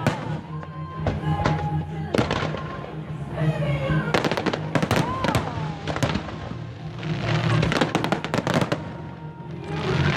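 Fireworks shells bursting and crackling in several quick volleys, with music playing alongside.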